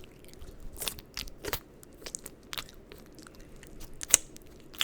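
Lotion-coated hands rubbing together close to the microphone: irregular wet, sticky clicks, with one sharp, loud click about four seconds in.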